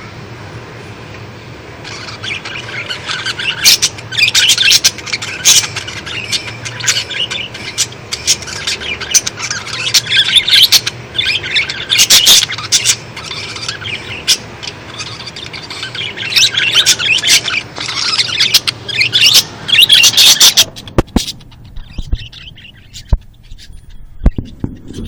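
Pet lovebirds chirping and squawking in rapid, shrill calls, loud and near continuous for most of the time. Near the end the calls stop abruptly and a series of sharp clicks follows.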